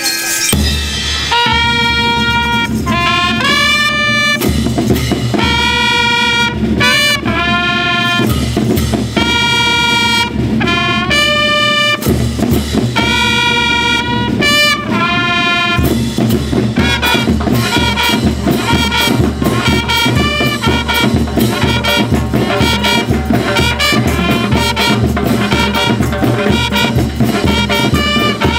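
School rhythm band playing: a brass section led by trumpets over a drum kit and bass-drum beat. The brass holds long chords in phrases of a second or two for the first half, then breaks into quick short repeated notes, with the drum beat steady throughout.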